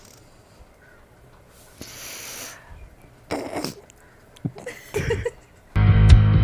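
A person sniffing hard at a broken chilli pepper to set off a sneeze: a few short, sharp sniffs and nasal snorts with pauses between them. Loud music starts suddenly near the end.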